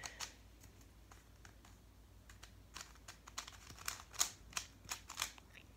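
Stickerless plastic barrel cube, a 3x3 shape mod, being twisted by hand: faint, irregular clicks and scrapes of its plastic layers, coming thicker in the second half. The puzzle is stiff and really hard to turn.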